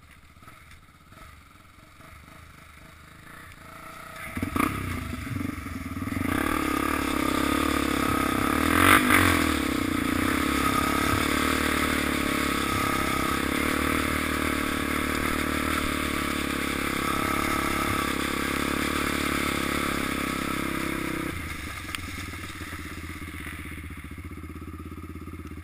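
Quad (ATV) engine picking up about four seconds in and then running hard and steady as the quad rides over railroad-track gravel ballast, with one loud clatter about nine seconds in. The engine eases off a few seconds before the end.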